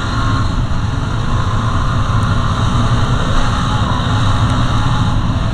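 Yamaha WR250R dual-sport motorcycle's single-cylinder four-stroke engine running steadily while being ridden off-road.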